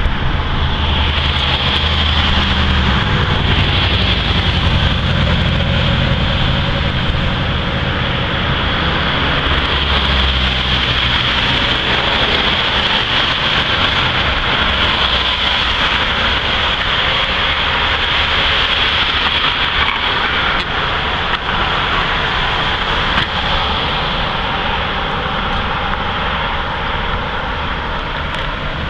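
Freight train of container and tank cars rolling past, a steady loud rumble of wheels on rail with a constant high hiss over it.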